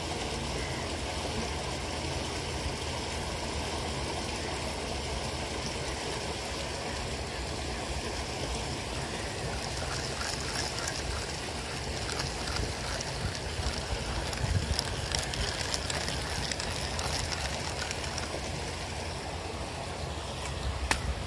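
Steady outdoor rushing noise, heaviest in the low end, with a run of faint quick ticks about halfway through and a sharp click near the end.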